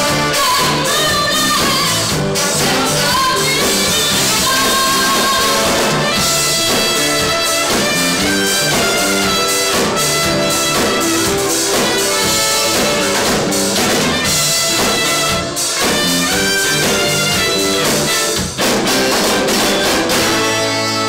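Live soul band playing loudly: a woman singing over electric guitar and drums, with a horn section of trumpet and trombone.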